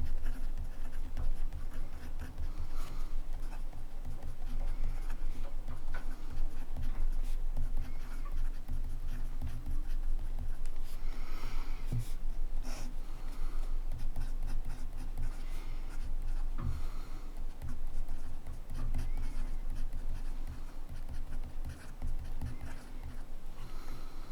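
Montblanc Meisterstück 144 fountain pen nib scratching across paper in continuous handwriting, an irregular run of short pen strokes.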